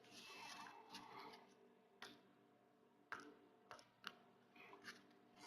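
A deck of glossy oracle cards being handled, faint: a soft rustle of sliding cards for the first second, then a few light clicks and taps, roughly one a second, as cards are moved and flipped.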